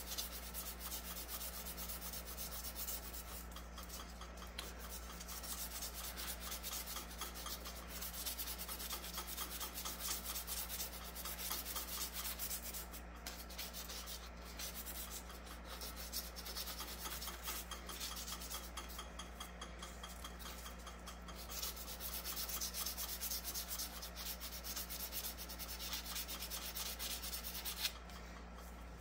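Abrasive held by hand against a wooden pen blank spinning on a lathe: a continuous rasping hiss that swells and eases as the hand moves, over the steady low hum of the lathe. The sanding stops with a click about a second before the end, leaving only the hum.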